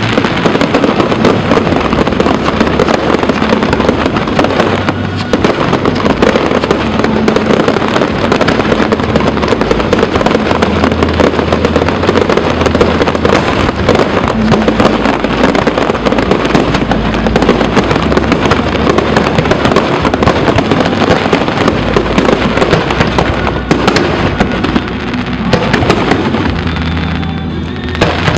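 Fireworks display: a dense, continuous barrage of bursts and crackling, with a brief lull about 27 seconds in before it picks up again.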